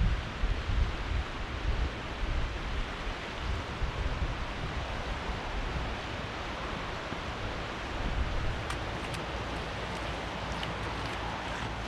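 Steady rushing wind in the open, buffeting the microphone with low rumbles in the first couple of seconds, then settling into an even hiss.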